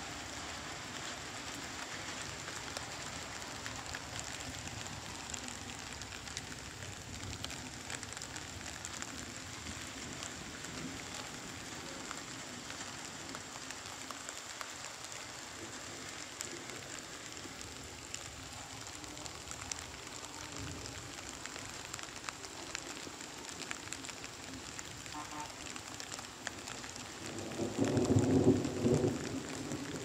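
Steady heavy rain falling on wet open ground and puddles, with individual drops ticking through it. Near the end a louder low rumble swells up over the rain.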